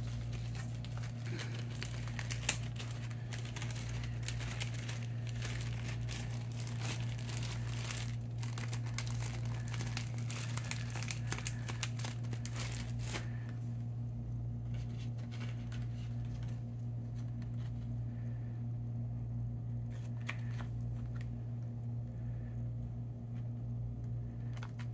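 Crinkling and rustling of craft materials being handled in short strokes, dense for the first half and sparser after, over a steady low hum.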